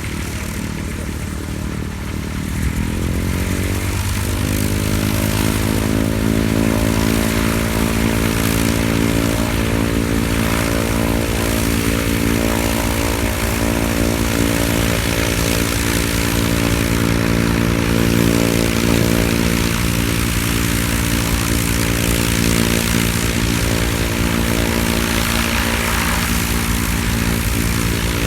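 Aircraft engine spooling up: its hum rises in pitch over a couple of seconds about three seconds in, then settles into a steady drone.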